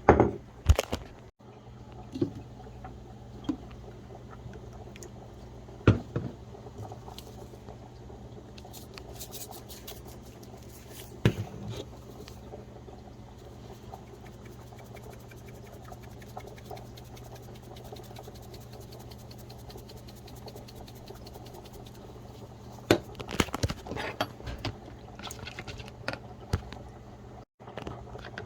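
Kitchen cooking sounds: scattered knocks and clinks of cookware and utensils, with a cluster of them near the end, over a steady low hum.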